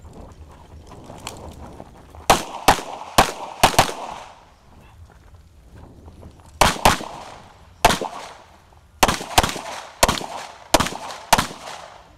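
9mm major Open-division race pistol firing rapid shots, mostly in quick pairs (double taps on each target), in two strings with a short pause between them while the shooter moves.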